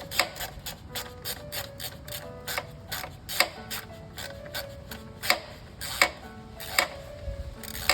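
Socket ratchet clicking in short, uneven strokes as a thermostat housing bolt is run down by hand.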